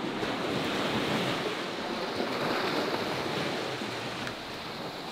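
Steady rush of wind and small waves on open bay water, with some wind buffeting the microphone. It eases off a little toward the end.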